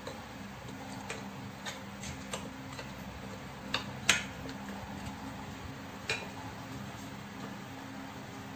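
A wooden spatula tapping and knocking against a stainless steel pot as pork ribs are stirred in water: scattered sharp taps, the loudest a little past four seconds in. A steady low hum runs underneath.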